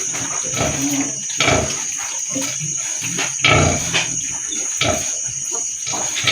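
Pigs grunting, a string of short irregular grunts, over a steady high-pitched whine.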